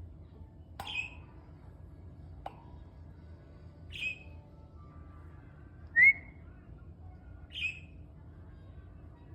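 A bird giving short, high chirps every two seconds or so, four in all, the loudest one about six seconds in. A single sharp click comes between the first two chirps.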